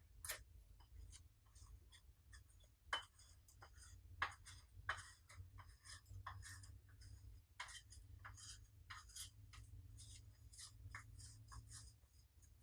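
Slime being squeezed and mixed by hand: faint, irregular small clicks and crackles with a few sharper pops, over a low steady hum.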